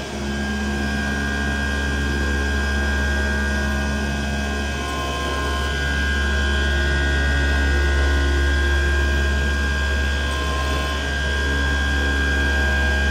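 CNC flatbed digital knife cutting machine running while cutting a sheet of EVA foam: a steady mechanical hum with a steady high whine over it.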